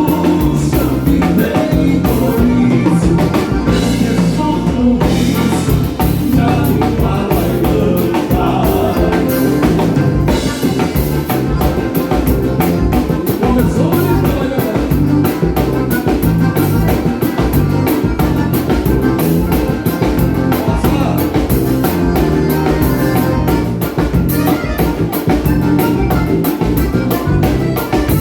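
Live gaúcho dance band playing a vanera, the southern Brazilian dance rhythm, with a drum kit keeping a steady, quick beat.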